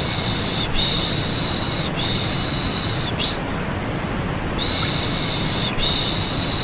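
Steady white noise with a soothing "shh" shushing sound repeated over it. Each shush lasts about a second, and they come in runs of three with a pause of about a second between runs.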